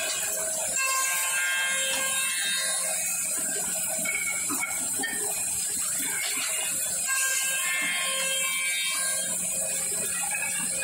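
Two-head CNC tenoning machine running, its motors and spinning cutter heads machining tenons on the ends of a wooden blank. It makes a steady high hiss over a low hum, with small mechanical ticks.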